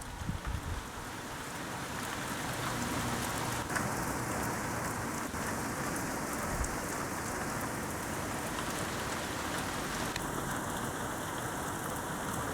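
Rain falling steadily in a thunderstorm, an even hiss of drops.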